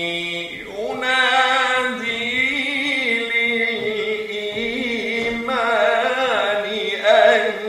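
Qur'an recitation in melodic tajweed style: a single voice chanting Arabic on long held, ornamented notes, with a short break about half a second in.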